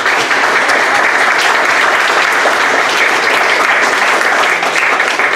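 Audience applauding steadily, many hands clapping together at the close of a talk.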